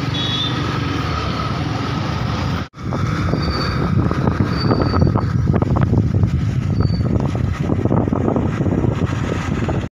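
Riding noise from a motorcycle on the move: wind rushing over the microphone, with engine and road rumble beneath. A brief dropout about two and a half seconds in splits it into two stretches.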